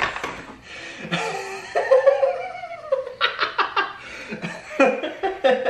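People laughing: a drawn-out, high-pitched laugh about two seconds in, then quick, rhythmic ha-ha laughter.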